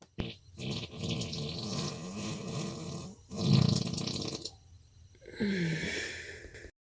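A person passing gas and moaning. First comes a long, wavering stretch, then the loudest sound, a low burst about three and a half seconds in. Near the end a short moan falls in pitch and cuts off abruptly.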